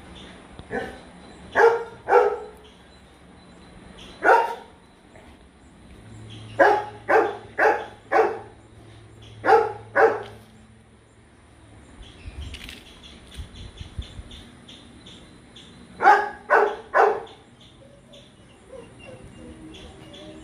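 A dog barking: about a dozen short barks in runs of one to four, with pauses of a few seconds between the runs and the longest pause in the middle.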